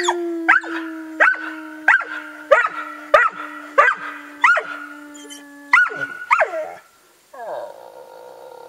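A Bruno Jura hound howling in a run of about ten short falling yelps, roughly one and a half a second, over a man's long steady low howl that stops about six seconds in. Near the end comes one quieter, longer howl.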